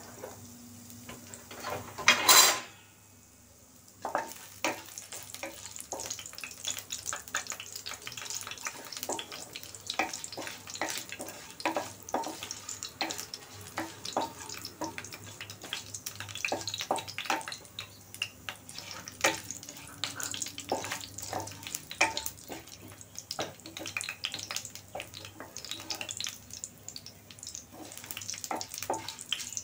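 Whole spices (bay leaves, dried chillies, fenugreek, cumin, coriander and carom seeds) crackling and sizzling in hot oil in a kadhai while a wooden spoon stirs and scrapes them: the tempering (tadka) stage. A short loud noise comes about two seconds in, followed by a brief lull before the crackling resumes.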